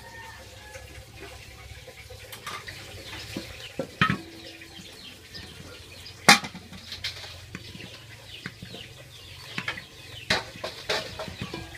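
Small knife slicing luffa gourd in the hand, the slices dropping into an aluminium bowl with sharp clinks and knocks of metal, the loudest about six seconds in. Chickens cluck in the background.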